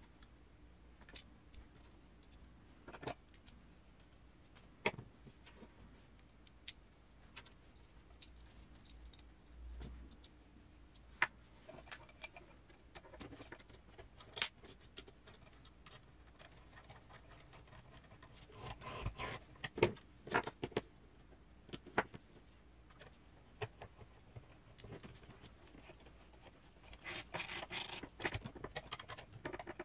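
Small metal hardware clicking and clinking as it is handled: M3 screws and nuts and metal chassis parts being picked up, set down and turned in with hand screwdrivers. Scattered single clicks, with busier bursts of rattling about two-thirds through and again near the end.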